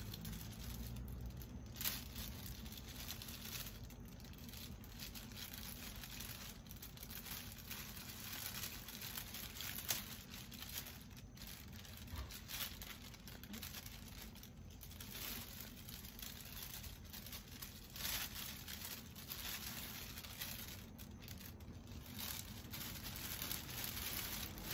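Plastic wrapping crinkling and rustling as items are handled and packed into a box, with a few louder knocks about 2, 10 and 18 seconds in.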